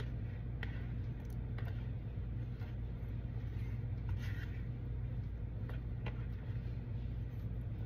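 A metal spoon scraping and lightly clicking on a plate as black beans are pushed off into a bowl, a few faint strokes spread out over a steady low hum.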